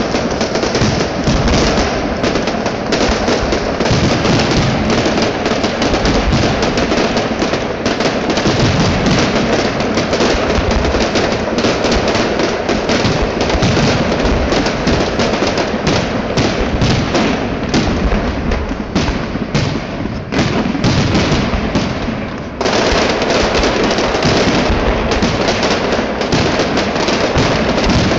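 Fireworks finale heard from almost directly beneath it: a dense, unbroken barrage of shell bursts and crackle. It eases briefly about twenty seconds in, then comes back at full strength.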